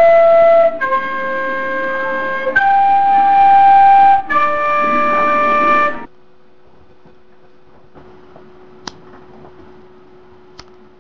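Plastic soprano recorder playing four long held notes one after another, stepping down, up, then down again, cut off suddenly about six seconds in. After that comes a faint steady hum with two sharp clicks.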